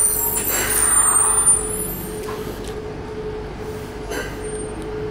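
Yokohama Municipal Subway Blue Line 3000-series train braking to a stop at a platform: a high brake squeal and hiss that fade out about two seconds in, over a steady hum from the train, with a short click or two near the end.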